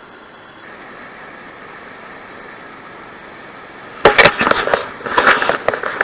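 A steady rush of running river water, then about four seconds in a loud spell of crackling and knocking that lasts a couple of seconds.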